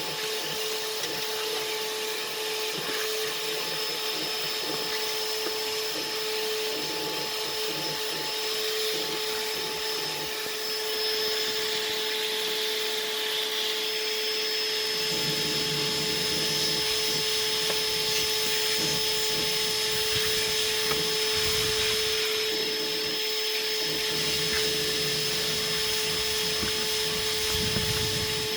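Vacuum cleaner running steadily, a constant motor whine over a rushing hiss, cleaning out a car's interior; the sound gets a deeper rumble about halfway through as the nozzle works.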